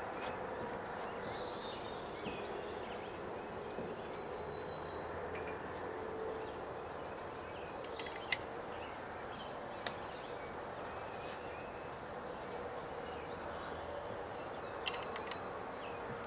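Steady outdoor background noise with a faint low hum, light bird chirps, and a few sharp clicks: twice in the middle and twice close together near the end.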